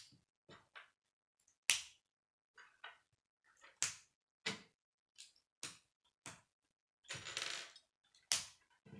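Plastic K'nex rods and connectors being snapped together by hand: a string of sharp, irregular clicks, with a longer plastic rattle about seven seconds in.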